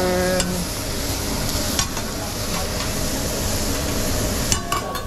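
Shrimp and scallops sizzling on a hot steel teppanyaki griddle, a steady hiss. Metal spatula and fork scrape and click against the plate, with a quick cluster of clicks near the end.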